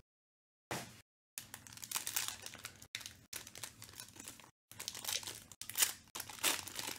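Foil wrapper of a trading card pack crinkling and tearing as it is pulled open by hand: a brief rustle, then an uneven run of crackles, loudest near the end.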